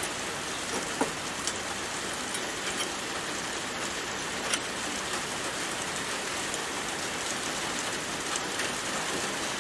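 A steady, even hiss like rain on a roof, with a few faint clicks.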